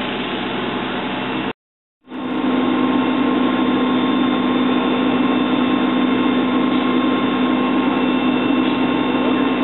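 Idling vehicle engine, a steady hum with a constant drone, broken by a brief dropout to silence about one and a half seconds in.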